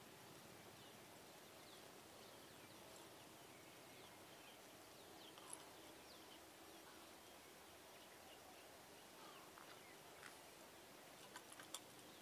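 Near silence: faint outdoor background hiss with scattered faint bird chirps, and a few light clicks near the end.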